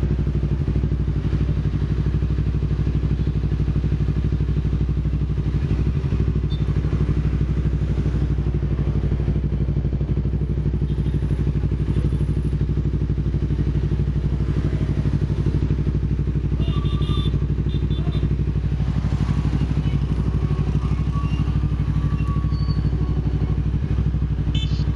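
Motorcycle engine running steadily at an even pitch, without revving up or down.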